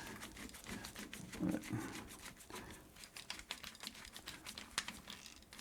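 Quiet hands-on handling: a scattered run of small clicks and rustles, with a brief low sound about a second and a half in.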